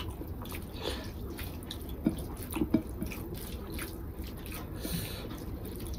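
Fingers mixing rice with egg curry on a plate: scattered soft, wet squelches and sticky smacks, a few louder ones about two seconds in.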